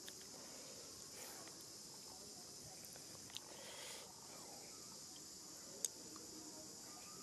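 Steady high-pitched drone of an insect chorus outdoors, with a few short sharp clicks, the loudest about six seconds in.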